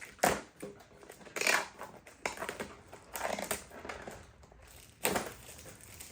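Plastic packaging of a socket set being handled and opened, crinkling and rustling in several short bursts.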